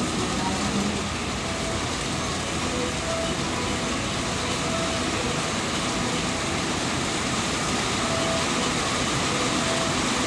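JR West 205 series electric train pulling in alongside the platform and slowing to a stop, with a steady rumble of wheels on rails and a few faint short squeals.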